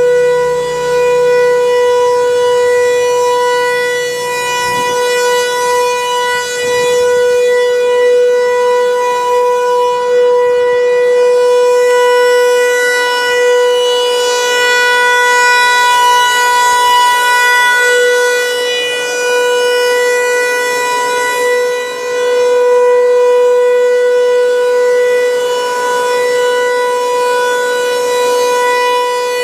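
Outdoor civil-defense warning siren sounding a steady alert tone for its scheduled test. It holds one flat, unwavering pitch, and its loudness swells and dips slightly every few seconds.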